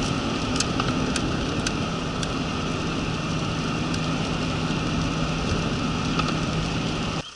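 Inside a Toyota's cabin at high speed, about 140–150 km/h on wet asphalt: steady tyre and wind hiss over a low engine drone, with scattered light ticks. The sound cuts off sharply just before the end.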